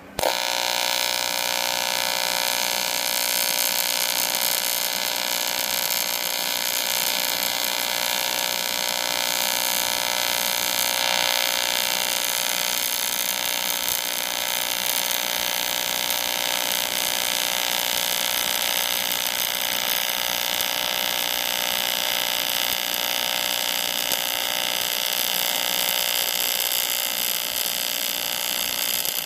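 AC TIG welding arc on aluminum from an Everlast PowerTig 250EX: the arc strikes abruptly right at the start, then gives a steady, unbroken buzz while the bead is laid.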